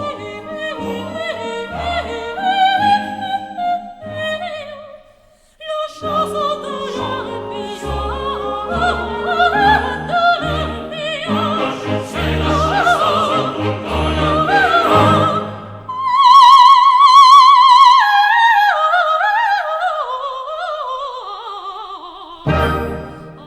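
Operatic singing with orchestral accompaniment: a soprano-range voice with wide vibrato, holding a long high note about two-thirds of the way through, then running down in steps.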